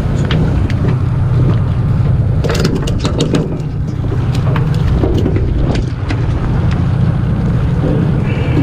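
Fishing boat's engine running with a steady low drone, with wind on the microphone. A cluster of sharp knocks comes about two and a half to three and a half seconds in, over the wet deck where a landed fluke lies.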